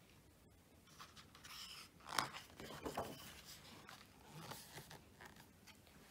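Soft rustling of a picture book's paper page being turned and pressed flat by hand, with two sharper crackles about two and three seconds in.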